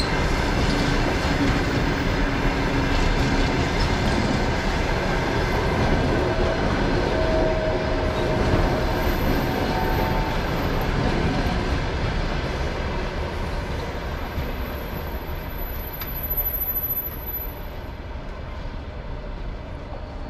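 Passenger train coaches rolling past at speed, a steady rumble and rattle of wheels on the rails that fades away over the last several seconds as the end of the train passes and recedes.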